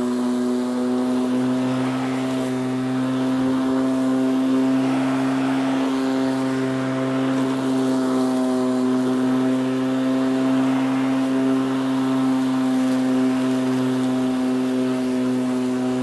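Lawnmower engine running steadily at one speed, its pitch holding even throughout.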